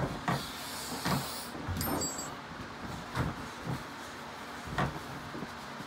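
Light knocks and clicks of metal parts and hand tools being handled during clutch reassembly, irregularly spaced with short pauses between them.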